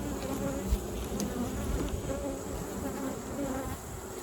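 Honeybees buzzing around an open hive, many bees in flight at once, their overlapping hums wavering up and down. A brief soft knock comes just under a second in.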